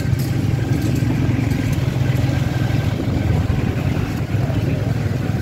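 Steady low rumble of motor traffic, motorcycle and car engines running on a busy street.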